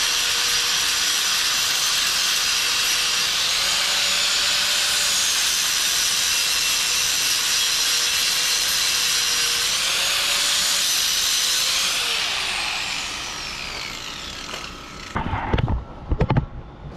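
Angle grinder grinding down a fresh weld on a steel exhaust pipe: a loud, steady grinding hiss with the motor's whine dipping and rising as it bears on the metal. About twelve seconds in, the grinder is let off and winds down over a couple of seconds, followed by a few knocks near the end.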